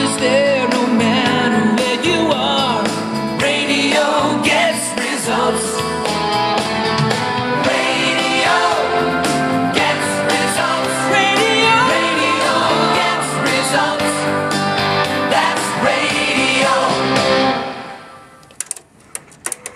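A pop-rock song with singing and guitar playing from a cassette in a TOA BA-823 double cassette deck. The music cuts off near the end as the deck is stopped, followed by a few light clicks.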